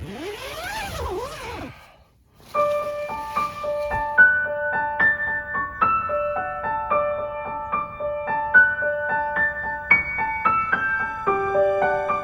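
A brief sound whose pitch rises and falls twice, then gentle solo piano background music from about two and a half seconds in.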